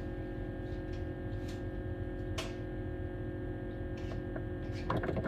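A steady electrical hum with a few faint clicks.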